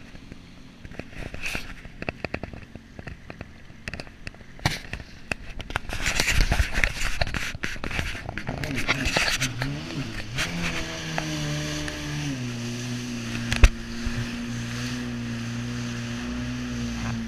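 Jet ski ride: several seconds of knocks, clicks and rushing water and wind against the camera, then the jet ski's engine comes up, its pitch rising, and settles into steady running from about halfway, with one sharp knock soon after.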